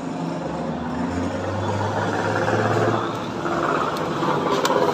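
A motor vehicle's engine running, with a low hum that drops away about three seconds in.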